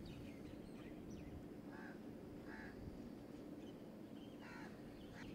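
Quiet outdoor background: a steady low hum with a bird's short calls, two about two seconds in and one more near the end.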